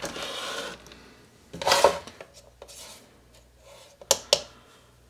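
Workbench handling sounds: a scrape, the loudest sound, as a plastic digital kitchen scale is slid across the wooden bench. About four seconds in come two sharp clicks as the scale's buttons are pressed.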